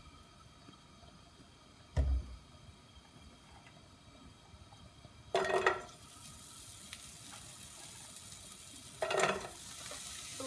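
Handfuls of diced onion dropped into hot oil in a nonstick frying pan, crackling sharply twice as each handful lands, about five and nine seconds in, then a steady sizzle as they start to fry. A dull thump about two seconds in.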